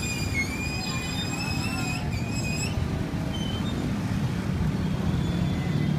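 Street traffic rumbling steadily. A high, slightly wavering squeal with overtones sounds for the first two and a half seconds or so, then stops.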